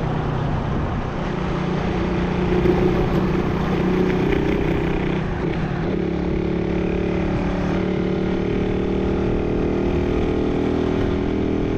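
Motorcycle engine running at cruising speed, heard from the rider's seat over steady road and wind noise; its pitch steps up slightly a couple of times.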